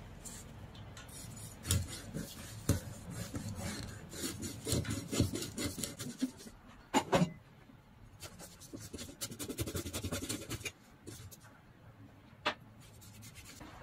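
Large kitchen knife sawing and rasping through a whole fish that is still partly frozen, grating on the scales and scraping the plastic cutting board. A few sharp knocks of the blade come through, the loudest about seven seconds in.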